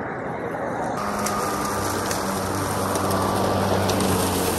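Atlas 80V battery-powered self-propelled lawn mower running and cutting through thick, dry grass: a steady electric hum with a thin high whine over the rush of the blade, coming in about a second in.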